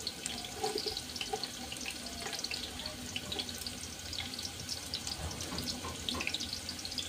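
Hot cooking oil in an aluminium pot over a gas burner, crackling and spitting with a steady hiss.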